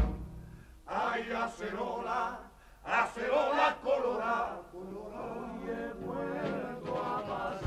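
Male voices of a Cádiz carnival group singing on an old cassette recording, in three short phrases with the accompaniment thinned out. A low thump opens the passage, and another near the end brings the fuller band back in.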